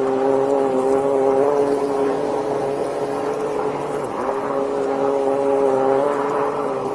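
High-pressure drain jetter's engine-driven pump running with a steady hum, over the hiss of water spraying up out of the drain opening. The hum drops out briefly about four seconds in, then returns.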